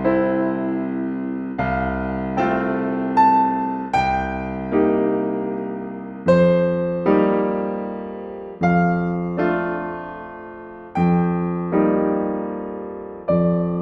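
Slow solo piano music: chords struck about once a second, each left to ring and fade before the next.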